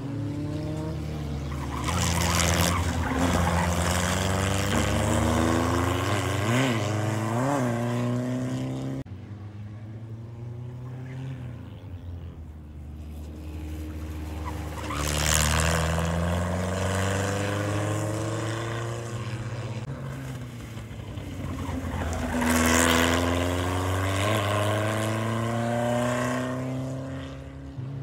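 Formula 1800 single-seater race car's 1.8-litre engine running hard on track, its note climbing and dropping as it shifts, brakes and accelerates. It swells loud each time the car passes close, three times.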